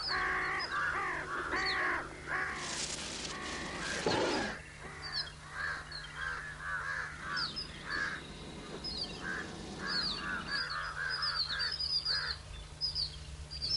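Crows cawing repeatedly in a string of short harsh calls, with higher chirps from smaller birds: the alarm commotion birds raise around a crested serpent eagle. A brief rustling burst comes about three to four seconds in.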